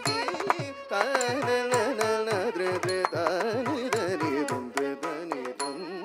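Live Carnatic music for a Bharatanatyam thillana: quick mridangam strokes with falling bass notes under a melody full of wavering ornaments. The drumming drops out about five seconds in, leaving held notes.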